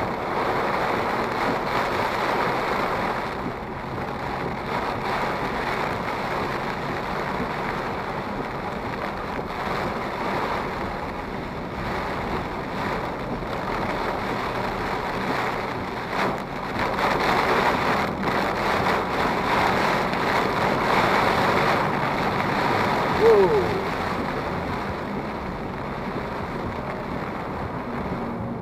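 Storm noise inside a moving car: heavy rain and wind on the car's body and windscreen, with tyres hissing on the wet road, swelling and easing. A short squeak late on.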